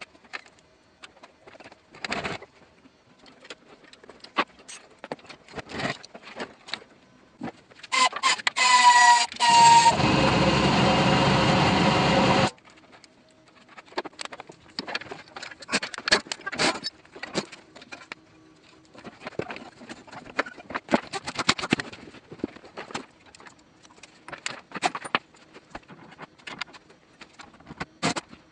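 Clinks, clicks and rattles of hand tools on metal car parts during drivetrain removal. Near the middle, a loud steady power-tool noise lasts about four seconds, starting with a whine and cutting off sharply.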